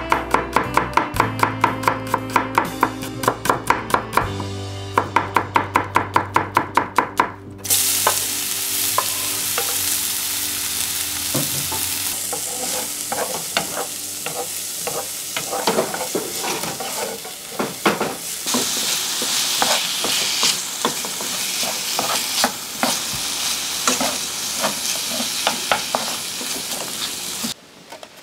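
Kitchen knife rapidly chopping garlic on a wooden cutting board, quick even taps several times a second. About seven seconds in, this changes to chopped garlic sizzling in a frying pan, with a wooden spatula scraping and clicking as it is stirred. The sizzling stops just before the end.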